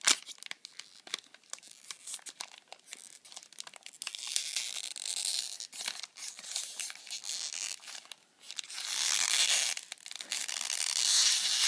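Gift wrapping crinkling and tearing as a wrapped box is unwrapped by hand: small crackles and clicks at first, then two longer stretches of rustling, the second one near the end.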